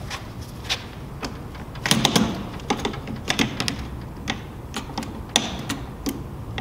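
Irregular metal clicks and clacks of a Type 96 light machine gun's receiver parts being worked by hand as the gun is opened for field stripping. A cluster of louder knocks comes about two seconds in.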